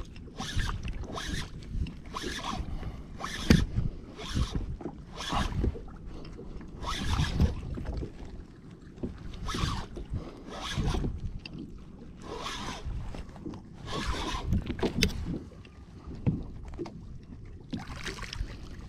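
Spinning fishing reel being cranked in short, scratchy bursts, roughly one a second, as a hooked fish is wound up to the kayak, over a low rumble of wind and water against the hull.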